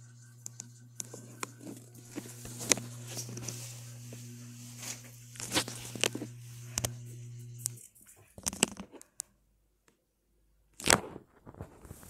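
Mini ceiling fan's motor humming steadily under scattered clicks and rustles. The hum cuts off suddenly about eight seconds in, and a sharp click follows near the end.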